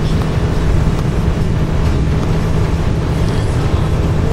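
Bus in motion on a wet road, heard from inside: a steady low engine drone with continuous tyre and road hiss and a few faint ticks.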